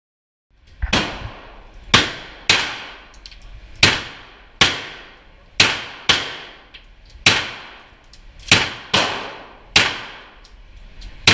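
AR-15 rifle fired semi-automatically on an indoor range: about a dozen single shots at an uneven pace, each a sharp crack followed by a ringing echo off the range walls.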